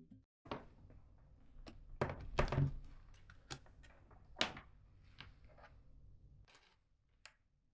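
Keyboard being handled during cleaning: a dozen or so irregular plastic clicks and knocks, loudest about two seconds in and again past four seconds, over a low hum that stops near the end.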